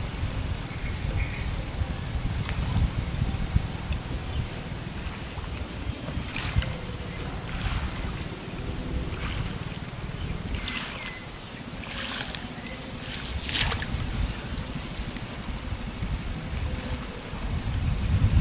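Open-air pond ambience: a thin high chirp repeating evenly a little under twice a second over a low wind rumble on the microphone, with a few short sharp sounds in the middle, the loudest a little after halfway.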